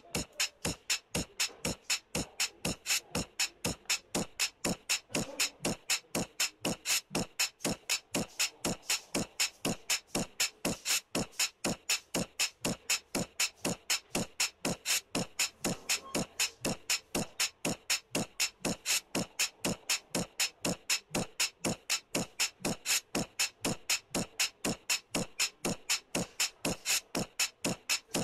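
Background music: a steady, fast beat of sharp, clicky percussive hits, several a second, with no voice.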